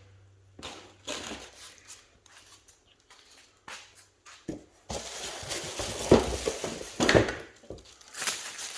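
Parts being handled in a workshop: a few light clicks, then rustling and clattering with a couple of sharper knocks from about halfway through.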